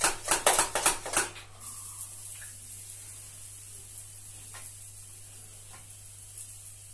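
Hand pump pressure sprayer misting water onto a porous cement wall, wetting it down before base plaster goes on. It gives about four quick spurts a second for the first second or so, then a steady, faint high hiss of continuous spray.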